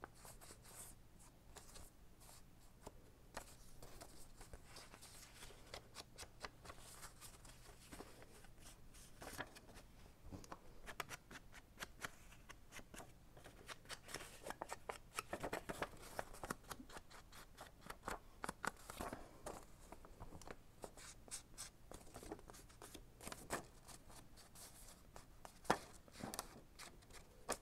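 Ink blending tool rubbed in many short, scratchy strokes along the edges of a paper envelope, with light paper rustling as the envelope is handled.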